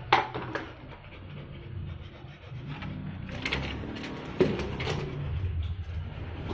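Footsteps and handling noise: a few sharp knocks and scuffs over a low rumble, with one right at the start and a cluster about three and a half seconds in.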